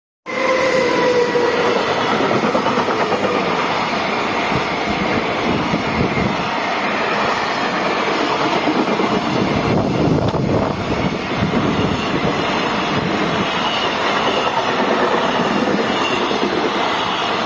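Freight train passing close by: a loud, steady rumble and clatter of wagon wheels on the rails, starting abruptly at full loudness. A pitched tone falls slightly in pitch over the first two seconds.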